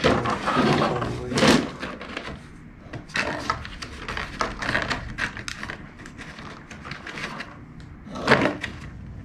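Plastic fog light bezels being handled in a cardboard box: rustling cardboard and light plastic knocks and clatter, with louder scrapes about a second and a half in and near the end.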